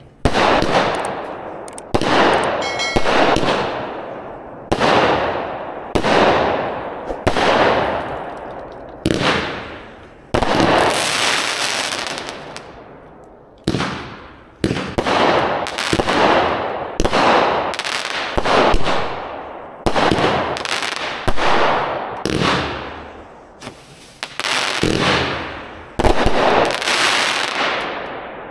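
Black Beard's Cannon, a 28-shot 200-gram consumer fireworks cake, firing its shots in quick succession, about one a second. Each shot is a sharp bang followed by a fading hiss and crackle.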